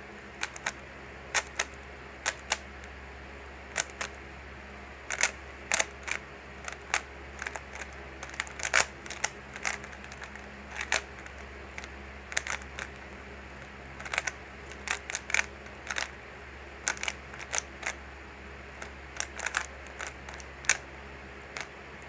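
3x3 Rubik's cube being turned by hand during a speed solve: irregular plastic clicks and clacks as the layers snap round, often in quick clusters.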